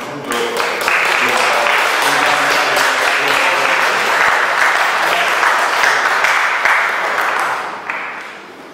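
Audience applauding: dense hand-clapping that swells about a second in, holds steady and dies away near the end.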